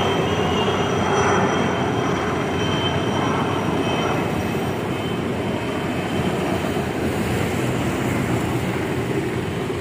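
Several helicopters flying over in formation: a steady drone of rotors and engines with a faint high whine, slowly getting quieter.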